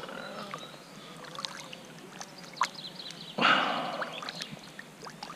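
Faint river water, then a short splash about three and a half seconds in that dies away over a second, with a few small clicks.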